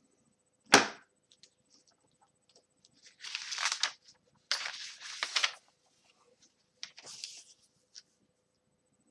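A sharp click, then three bursts of rustling, like something being handled close to the microphone.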